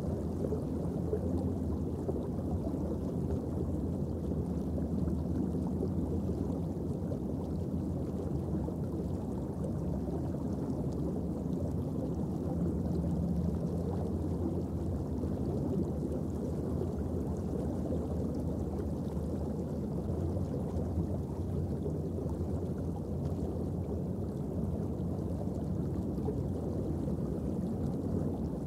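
Steady, muffled underwater ambience: an even low rumble with a faint low hum and no distinct events.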